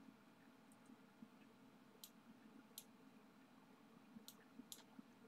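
Near silence with four faint computer mouse clicks, two about two to three seconds in and two more near four and a half seconds.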